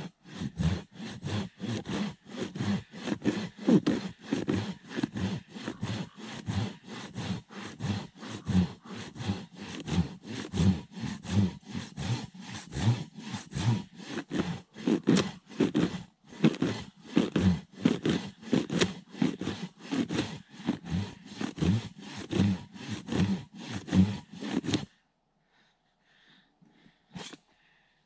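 Silky Katana Boy 650 folding handsaw cutting through a fallen tree in steady strokes, about two a second. There is a brief pause about halfway through, and the sawing stops a few seconds before the end.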